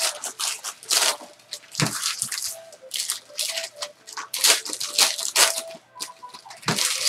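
Trading-card packs and their plastic wrappers crinkling and rustling in a run of short, sharp bursts as they are handled.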